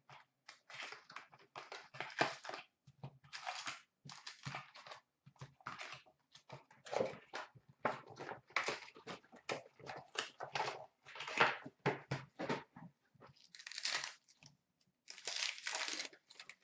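Wrapping and foil packs of a 2015-16 Fleer Showcase hockey card box crinkling and tearing as the box is opened, its packs are pulled out and one is ripped open, in irregular bursts of crackle.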